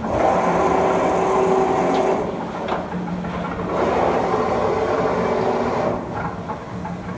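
Mechanical CNC turret punch press running with its flywheel spinning: a steady machine hum with a whine that swells twice, and a couple of sharp clicks about two seconds in.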